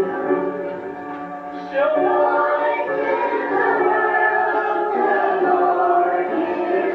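A group of voices singing a hymn together in held, sustained notes.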